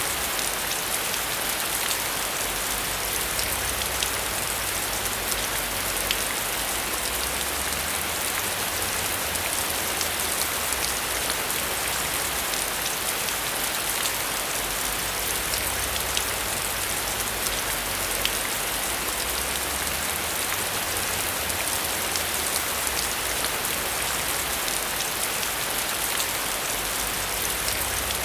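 Heavy rain falling steadily: a dense, even hiss with scattered sharper ticks of individual drops.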